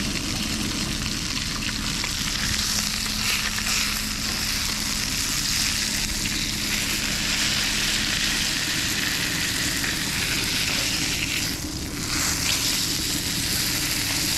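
Trout frying in a hot pan, a steady sizzling hiss that dips briefly near the end.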